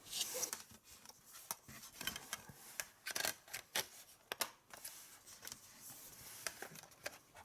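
Hands handling a Blu-ray steelbook case and its paper inserts: a brief rustle, then a string of irregular sharp clicks and light rubbing.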